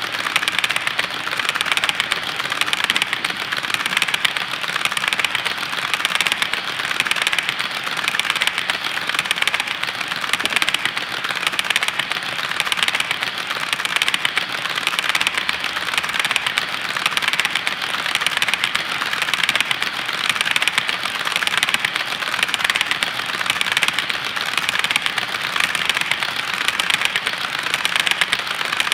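HO scale coal hopper cars rolling past on the track, their wheels making a steady, dense clicking and rattling on the rails.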